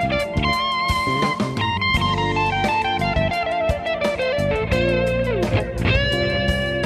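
Fender 60s Stratocaster electric guitar playing a single-note lead line, with held notes, vibrato and a note bent down about five seconds in. Behind it runs a backing track with a steady beat and bass.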